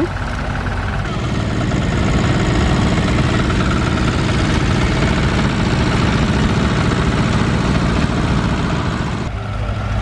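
Vintage tractor engine running steadily close by, a low rumble that changes abruptly near the end.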